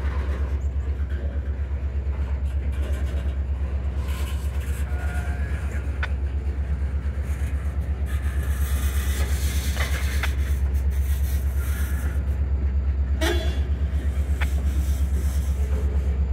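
Diesel locomotive engine running with a steady low rumbling throb. A few short knocks come through over it, the loudest, with a brief squeak, near the end.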